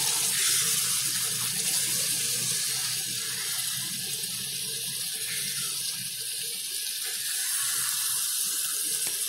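Okra, onions and tomatoes sizzling in hot oil and masala in a pan as they are stirred, a steady hiss.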